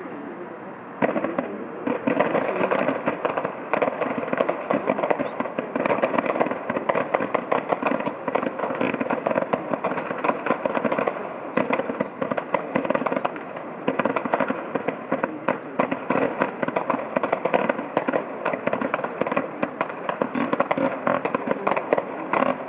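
Fireworks going off: a dense run of rapid crackling and popping that starts about a second in and keeps going.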